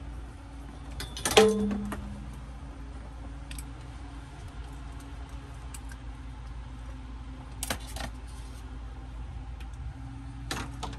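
Small hard objects clicking and clattering as they are handled, with one louder metallic knock about a second in that rings briefly, and a few lighter clicks later, over a steady low hum.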